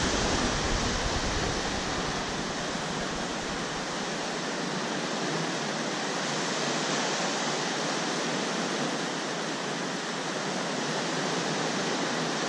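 Surf breaking and washing over shallow water: a steady rush of waves.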